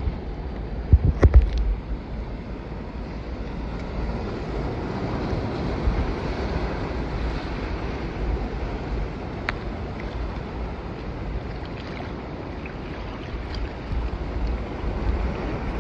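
Wind rumbling on the microphone over a steady wash of sea water, with a few sharp clicks about a second in and again past the middle.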